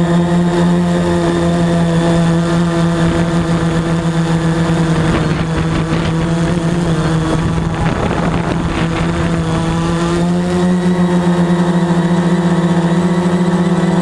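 Veho Muvi Q1 quadcopter's electric motors and propellers whining at a steady pitch. For a few seconds midway the tone weakens under a rushing noise, then comes back.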